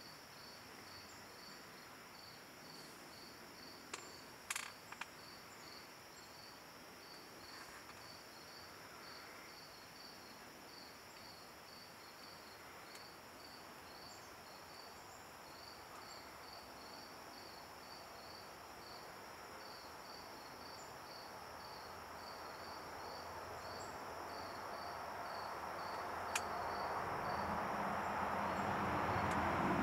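Insects chirping in a steady rhythm, about three short high chirps a second, over a steady high hum. A few sharp clicks sound about four to five seconds in, and a broad rushing noise swells steadily through the last ten seconds.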